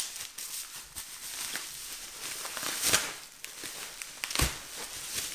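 Plastic bubble wrap crinkling and rustling as it is pulled off a bottle, with two louder sharp crackles about three seconds and four and a half seconds in.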